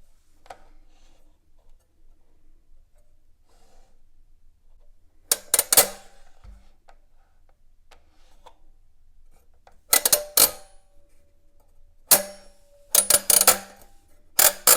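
Little Giant stamped-metal adding machine being worked by its tabs, its spring mechanism snapping in five groups of loud, sharp metallic clacks, a few of them leaving a brief metallic ring.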